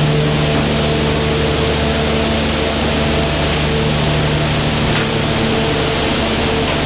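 Loud, steady machine hum with a rush of air noise over it.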